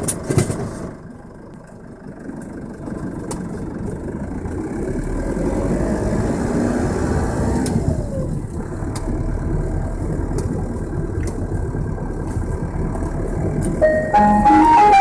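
Ice cream van's engine running as the van pulls away and drives slowly, heard from inside the cab. It grows louder over the first few seconds as the van picks up speed, with a couple of clunks right at the start.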